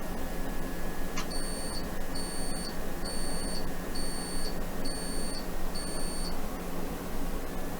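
An electronic beeper sounds six short, high-pitched beeps, evenly spaced just under a second apart, over steady static hiss.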